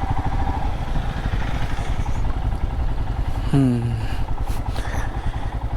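Vehicle engine running steadily on the move, a low pulsing rumble with road noise, and a short sound falling in pitch about three and a half seconds in.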